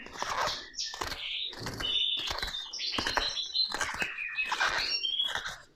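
Metal spoon scraping and gouging out the flesh of a raw turnip in quick repeated strokes, about two to three a second, the scrapes squeaking.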